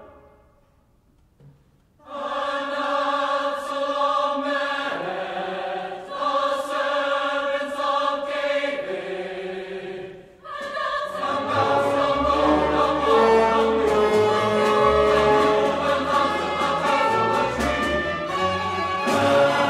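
A loud orchestral chord dies away into a couple of seconds of near silence. A mixed choir then enters singing slow held chords in phrases. After a short break about halfway, the choir goes on with the orchestra beneath it, adding a low bass line.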